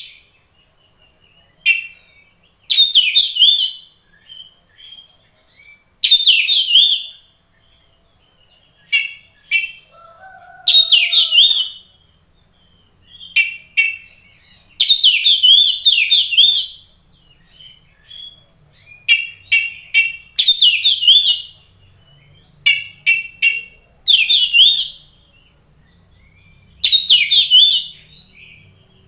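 Oriental magpie-robin (kacer) in full, vigorous song ('gacor'): loud, rapid whistled phrases about a second long, repeated every two to four seconds, with short clipped note clusters in between.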